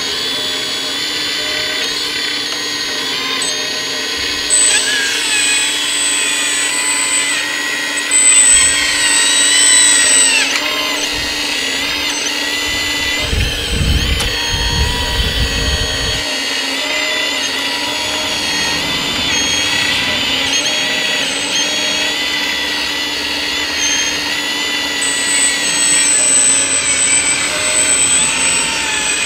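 Electric-driven hydraulic pump of a Kabolite 336 RC hydraulic excavator whining steadily, the high whine wavering up and down as the boom and bucket are worked. A low rumble joins it for a couple of seconds about halfway through.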